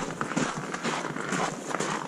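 Footsteps crunching on cold, dry snow, several steps in a steady walking rhythm.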